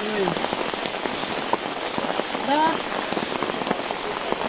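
Steady rain falling on wet mud and standing water, a dense patter of drops, with close drops tapping on an umbrella held overhead.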